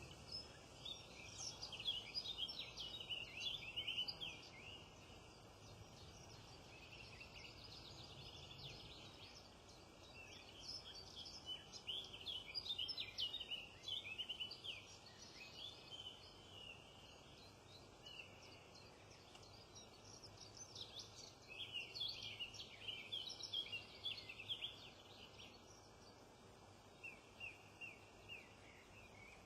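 Wild birds singing and chirping in short bursts of quick high notes and trills, several phrases with brief pauses between them, over a faint steady background hiss.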